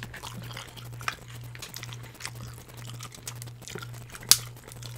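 Close-miked eating: chewing and crunching with many small crackles and one sharp crack about four seconds in, over a steady low hum.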